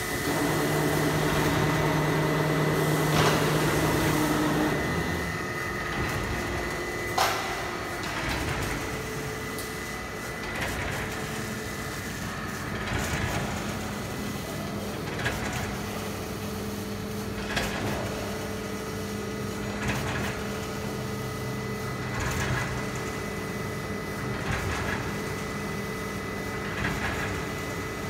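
Automatic plastic-film winder running: a steady motor hum and whine, with a light click or knock about every two seconds. A deeper motor hum is louder for the first few seconds, then eases off.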